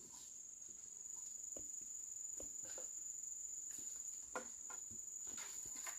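Insects, likely crickets, keeping up a steady high-pitched trill, with scattered light clicks and knocks.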